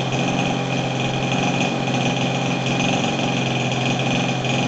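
Zenoah G26 26 cc single-cylinder two-stroke gasoline engine with magneto ignition, mounted in a quarter-scale J-3 Cub model airplane, running steadily at an unchanging speed with its cowl off.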